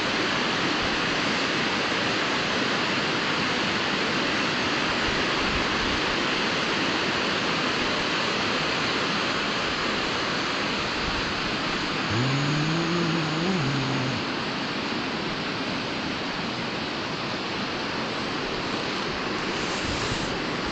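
A shallow river rushing over a rocky bed: a steady rush of water. About twelve seconds in, a short low hum rises and holds for about two seconds, and the rush is a little quieter after that.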